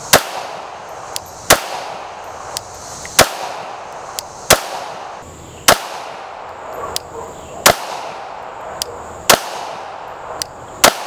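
Eight slow, aimed shots from a 9mm Glock Gen 5 pistol, about one every one and a half seconds, with fainter sharp cracks between some of them.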